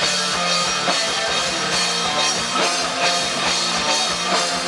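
Live band playing an instrumental passage between sung lines, loud and continuous with a steady beat.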